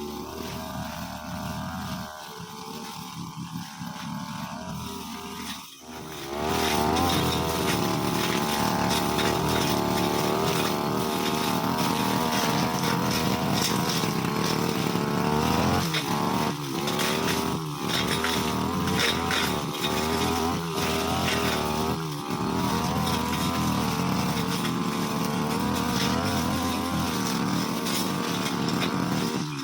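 Brushcutter engine running at low revs, then throttled up about six seconds in and running at high revs while cutting grass, with a few brief drops in revs partway through.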